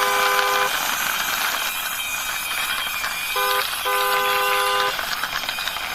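Two-note car horn honking. One blast ends just after the start, then about three and a half seconds in comes a short toot followed by a longer honk, over a steady hiss and a faint high whine.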